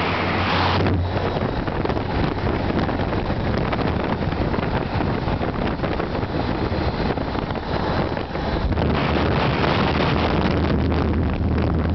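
Motorcycle engine running while riding, under heavy wind rush on the microphone. The wind hiss drops about a second in, and the low engine note grows stronger over the last few seconds.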